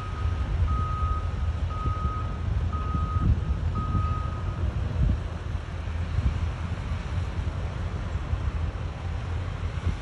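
Backup alarm on heavy construction equipment beeping about once a second, then stopping about four and a half seconds in, over a steady low rumble.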